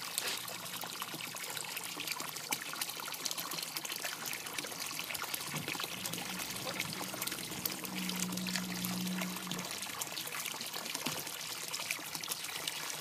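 Water pouring and trickling into a fish pond, with small splashes from an Indian ringneck parakeet bathing in the falling stream. A low steady hum joins for a few seconds in the middle.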